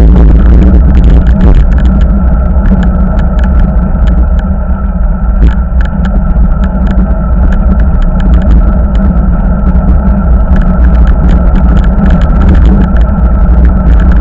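Heavy wind rumble on the microphone of a handlebar-mounted camera on a moving bicycle, with many small clicks and rattles from the road coming up through the handlebars and a thin steady tone throughout.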